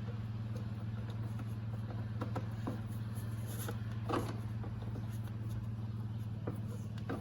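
Hands working a silicone intake coupler in a car's engine bay: a few light knocks and rubs scattered through, over a steady low hum.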